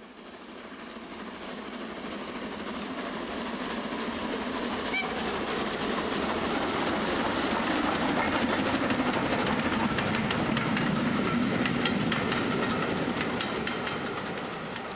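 00 gauge model train, a steam-outline locomotive hauling coaches, running along the layout track with its wheels clicking over the rail joints; it grows louder to a peak in the middle, then fades away.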